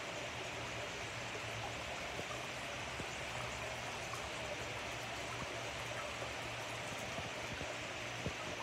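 Steady trickling and bubbling of moving pond water, with a low steady hum beneath and a few small pops or drips.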